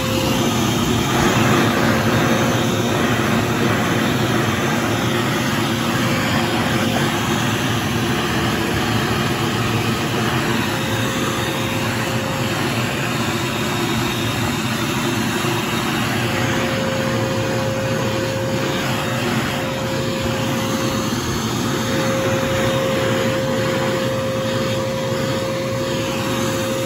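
A 1.5-gallon, 2-horsepower wet/dry shop vac running loud and steady, a constant motor whine over rushing air, as its nozzle is worked over a dirty car floor mat.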